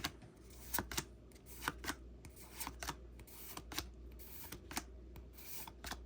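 Trading cards being flipped one by one in the hands, a quiet card-on-card slide and snap about twice a second.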